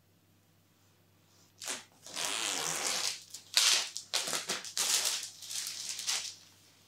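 A thin protective plastic film being peeled off a picture frame, crinkling and tearing in a string of rustling bursts that start a second and a half in and stop shortly before the end.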